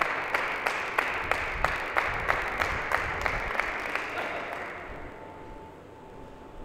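Crowd applauding after a point, with clapping in a steady rhythm of about three claps a second, dying away about five seconds in.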